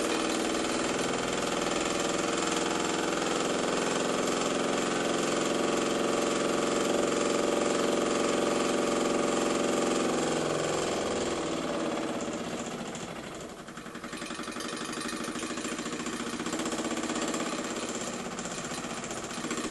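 Märklin 4097 model steam engine, fed by a homemade boiler, running fast with its steam valve open full: a rapid, steady mechanical beat. About halfway through, it slows with its pitch falling, dips, and runs on at a lower speed.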